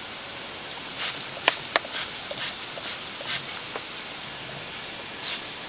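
Small pump spray bottle spritzing water into a wood-fired pizza oven onto its over-hot baking stone: about six quick hissing sprays, some with a click, in the first few seconds, and one more near the end.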